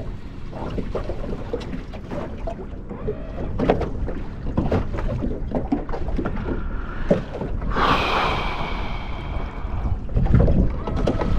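Small fishing boat drifting on open water: a steady wash of water against the hull and wind on the microphone, with scattered light knocks and clicks. About eight seconds in there is a brief whirring whine lasting about a second.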